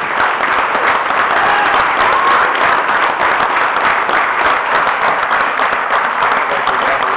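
Audience applauding: many people clapping together, dense and steady throughout.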